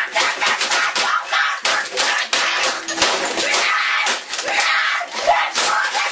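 A boy screaming in a rage while slamming a computer keyboard against a desk again and again: a rapid string of hard plastic clacks and bangs under a continuous shrill scream.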